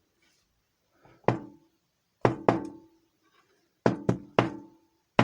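Six sharp metallic knocks, one, then two, then three in quick succession, each ringing briefly: a drilled-out Master Lock padlock being knocked against a hard surface to shake loose its pins and springs.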